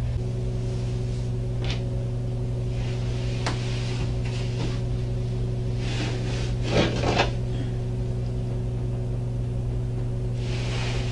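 Steady low electrical hum of an old surveillance recording in a small room, with scattered soft rustles and light knocks of someone shifting at a table; the loudest cluster comes about seven seconds in.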